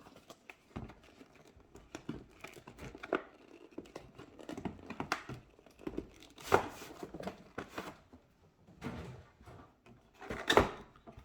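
A cardboard Lego kit box being opened and its contents handled: irregular rustling and crinkling of cardboard and plastic, with small clicks, and two louder bursts, one about halfway through and one near the end.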